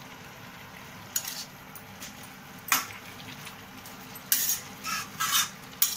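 Metal spatula scraping and clinking against a metal kadai as salt is stirred into simmering methi aloo (potatoes with fenugreek greens): a series of short scrapes, more of them in the second half, over a soft steady sizzle.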